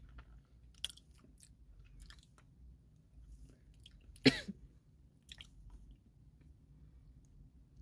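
Mouth sounds of someone sucking on a Chupa Chups hard-candy lollipop: small wet clicks of the candy against teeth and lips, with one much louder smack about four seconds in.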